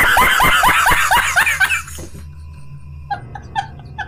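Man laughing hysterically: a run of loud, rapid cackles, each falling in pitch, for about two seconds. After a short lull, high, squeaky giggles in quick pulses come near the end.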